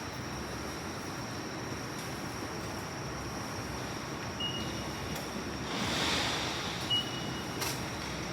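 Station ambience by the ticket gates: a steady background rumble with a faint constant high whine, and short single beeps from the IC-card ticket gates about four and seven seconds in. A brief hiss swells up around six seconds in.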